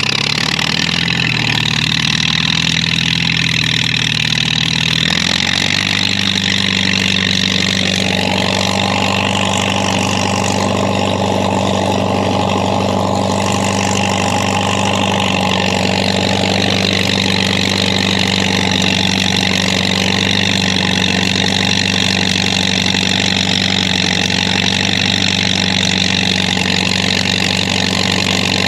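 Engine running steadily; its pitch steps up about five seconds in and then holds.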